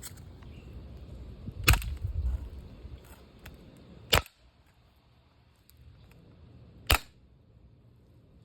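Three sharp gunshots, about two and a half seconds apart.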